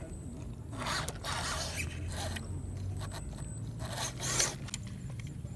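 Scale RC crawler driving over rough ground: three short scraping, rasping bursts, the last the loudest, over the low steady hum of its electric motor and gears.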